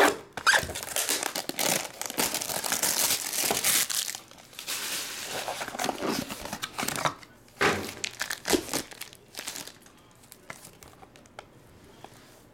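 Plastic shrink-wrap being torn and crinkled off a sealed trading-card box. This is followed by cardboard box handling with a couple of sharp knocks about eight seconds in, then quieter handling.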